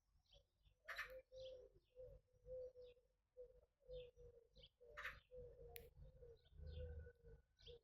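Faint birdsong: high, quick chirps from small birds over a low note repeated about twice a second.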